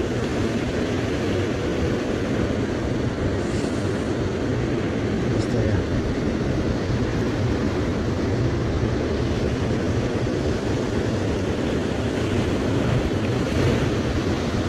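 Steady rush of waves breaking on a rocky shore, mixed with a low wind rumble on the microphone.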